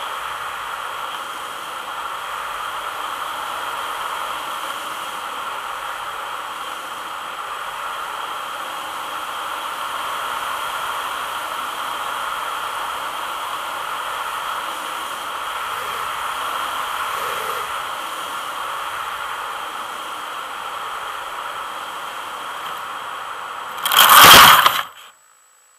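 Steady drone and airflow hiss of a radio-controlled model airplane in flight, heard from a camera on board. About 24 seconds in comes a loud scraping impact lasting about a second as the plane comes down in the grass, and then the sound cuts off abruptly.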